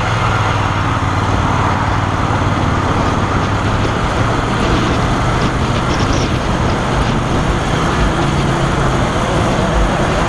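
Motorcycle engine running at a steady low speed while riding past stopped traffic, under loud wind rush on the rider's camera microphone; the engine hum fades near the end.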